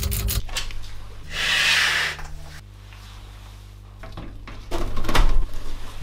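Hand work on a sheet-steel PC case: a screwdriver turning a screw with fast clicks at the start, then a scrape about a second in, and a few knocks with one loud clunk near the end.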